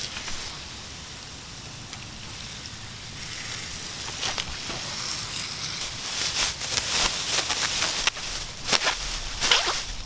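Thin plastic bag crinkling and rustling as a watermelon is slipped into it and lifted, starting about a third of the way in and growing louder, with sharp crackles near the end.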